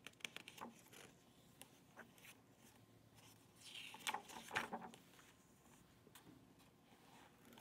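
Faint rustling and rubbing of paper as pages of a hardcover picture book are turned, with soft clicks. The loudest rustle comes about four seconds in.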